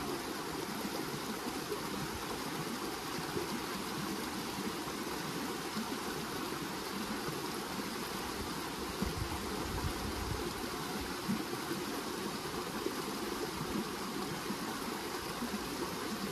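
Steady rushing of flowing stream water, with uneven low rumbling underneath.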